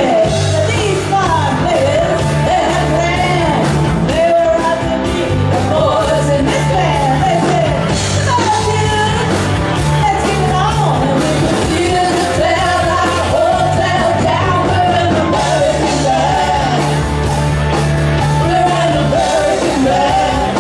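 Live rock band playing: sung vocals over electric guitar, bass guitar and drums, loud and steady.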